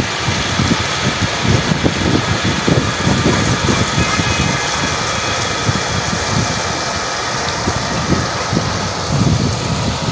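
Tube well's pump engine running steadily, with water rushing from its outlet pipe into the tank.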